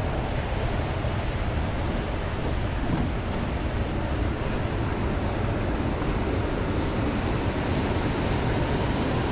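Steady rushing noise of high, fast-flowing flood water, with wind buffeting the microphone.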